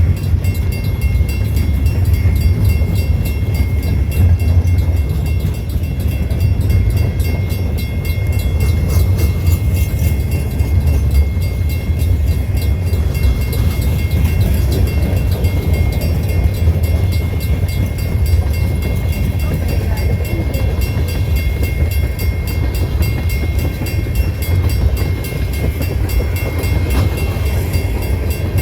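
Great Lakes Central train rolling past: a steady heavy low rumble, with a thin steady high ring over it.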